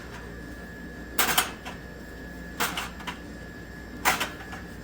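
Drink containers being pushed into a vending machine's product trays: three quick clusters of plastic clicks and knocks, about one and a half seconds apart, over a faint steady high-pitched tone.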